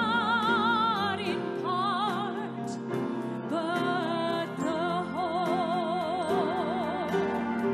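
Female solo singer with a wide vibrato, holding long notes, over a brass band accompaniment with a light steady ticking beat.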